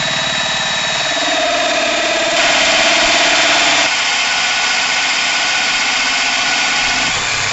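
Cordless drill driving a hole saw through the 6-inch well casing, cutting the 2-inch hole for a pitless adapter. It runs at a steady speed, grows a little louder for a moment partway through, and starts and stops abruptly.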